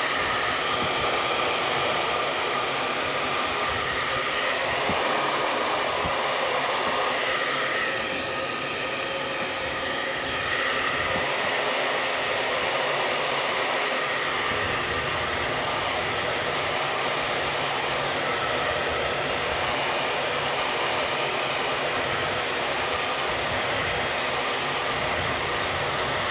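Hand-held hair dryer switched on and running steadily, a constant rush of air with a faint whine, blowing heat onto an iPad's glass screen to soften the adhesive beneath it.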